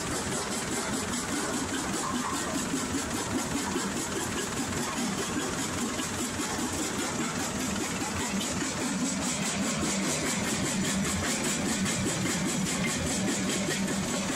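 Jaw crusher running steadily, its drive and jaws making a constant mechanical din as it crushes oxidized quartz ore.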